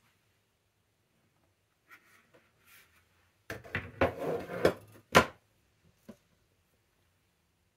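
A plastic tiered spice rack set down and slid across a kitchen worktop: about a second and a half of scraping and rattling, then a sharp knock as it is pushed into place, and a faint click after.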